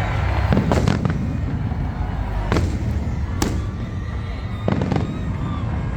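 Fireworks bursting: a quick cluster of sharp bangs about half a second in, single bangs at about two and a half and three and a half seconds, and a pair near five seconds, over a steady low rumble.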